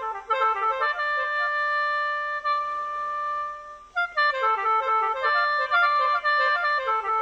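Khaen, the free-reed mouth organ, played as the Mien play it: a quick moving melody over several held drone notes, with a short break about four seconds in before the playing picks up again.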